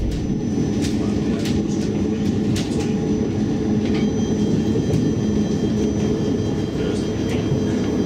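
CAF Urbos 3 tram running along the track, heard from inside the driver's cab: a steady low rumble with a few scattered sharp clicks. A faint high whine runs throughout, and a second tone joins it about halfway through.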